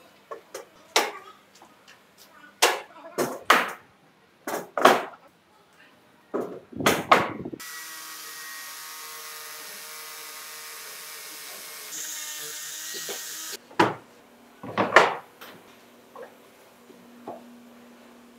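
Wooden boards knocking and clattering as they are handled, then an angle grinder running steadily on a wooden panel for about seven seconds, getting louder and higher for its last second and a half before it stops. It is followed by two more knocks of wood.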